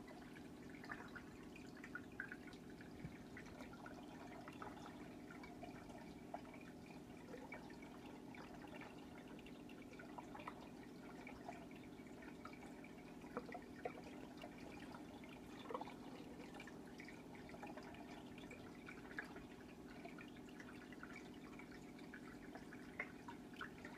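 Faint aquarium water: scattered drips and small splashes over a steady low hum.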